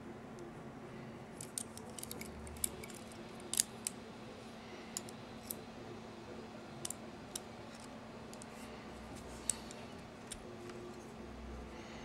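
Red Storm butterfly knife being slowly opened and closed by hand: its metal handles, blade and latch click and clink against each other. The clicks are short, sharp and scattered, bunched in the first few seconds, with a few more later and the last about ten seconds in, over a faint steady hum.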